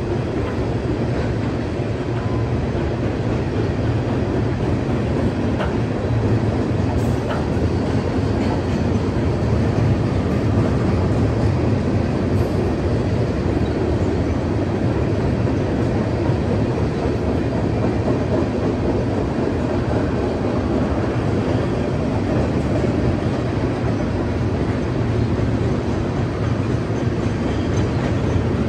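Freight train's tank cars and boxcars rolling across a steel truss bridge: a steady rumble of wheels on rail.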